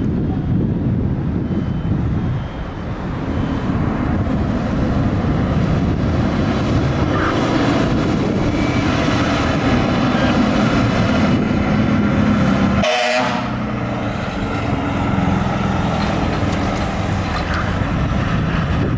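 Spartan aerial ladder fire truck's diesel engine running loudly as it pulls out and drives off on a call, with air horn blasts over it. The sound breaks off abruptly about thirteen seconds in and carries on.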